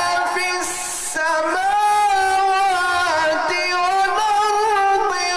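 A man reciting the Quran in the melodic tilawat style into a microphone: long, sustained notes that glide and ornament in pitch, with a short break about a second in before the next phrase.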